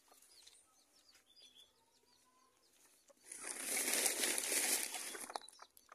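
About three seconds in, a burst of rustling lasting about two seconds, of the kind made by a chicken flapping its wings or by leaves and branches being brushed. Before it, faint short high chirps of small birds.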